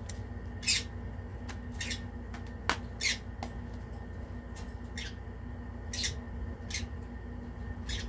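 Pet birds giving short, sharp high-pitched squawks, one every second or so, with a single click about a third of the way through.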